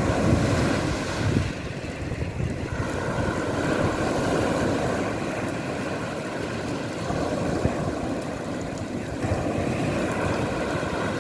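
Sea water and wind buffeting the microphone, a steady rushing noise with a faint steady hum underneath.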